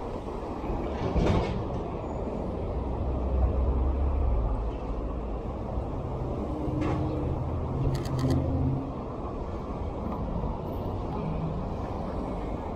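Downtown street traffic: a steady low rumble of vehicle engines, with a heavier engine running close by in the middle of the stretch. A few short sharp clicks come about one, seven and eight seconds in.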